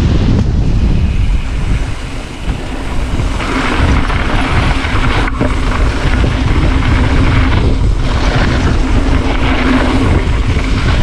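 Strong wind buffeting an action camera's microphone during a mountain bike ride, a steady heavy rumble. About three and a half seconds in, a brighter hiss of tyres rolling over dirt joins it.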